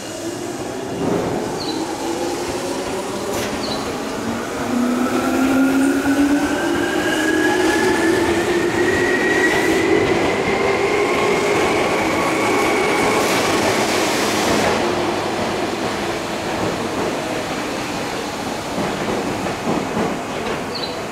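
Tokyu 8500 series electric train pulling away: the whine of its field-chopper-controlled traction motors rises steadily in pitch as it accelerates. The sound grows loud about five seconds in, then eases off after the pitch stops rising.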